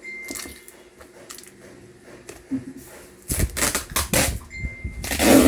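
Packaging being handled and opened: scattered clicks and rustles, then from about three seconds in a run of louder rustling, tearing and knocks, loudest near the end.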